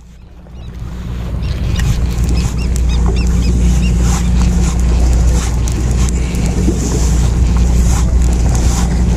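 Boat engine running steadily as a low hum under wind and water noise. It fades in over the first two seconds.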